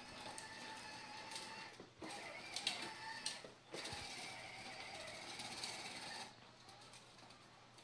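Battery-powered ride-on toy fire truck's small electric motor and gearbox whirring faintly as it drives, with short breaks about two and three and a half seconds in, then dropping away about six seconds in.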